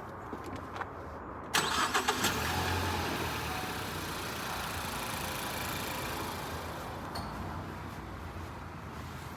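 Car engine cranking briefly and catching about a second and a half in, then running fast and gradually settling toward idle: a Honda with a dead battery starting on a jump start.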